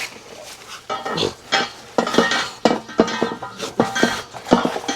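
Hand tools and steel suspension parts clinking and knocking against each other as they are handled: a scatter of short, sharp metallic knocks.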